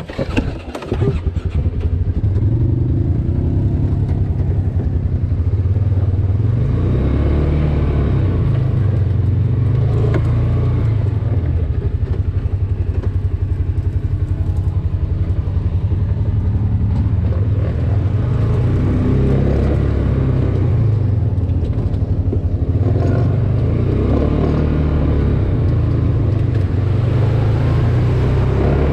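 Polaris side-by-side UTV's engine running steadily under way on a dirt trail, heard from the driver's seat: a continuous low rumble.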